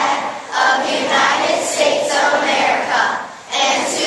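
A large group of children's voices together in unison, with a short break about three and a half seconds in.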